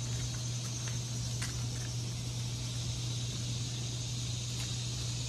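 Lower leaves of a yucca being pulled off the stem by hand in a downward motion: a few faint snaps and rustles over a steady low hum and a high outdoor drone.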